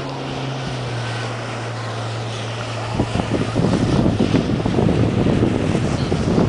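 Jet ski engine running with a steady hum. About three seconds in, a louder, rough rushing of wind buffeting the microphone takes over.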